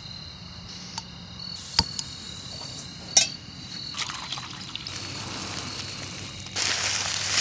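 Backpacking gas canister stove being set up and used: a few sharp metal clicks, then a steady hiss, with a louder rustling rush near the end as a ramen packet is emptied over the pot.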